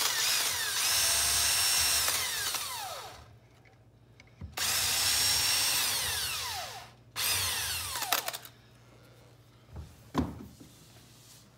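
Cordless drill running in three bursts while it bores angled pilot holes for small finish nails at the base of a post. Each run winds down with a falling whine as the trigger is let go, and the last run is short. A single knock follows near the end.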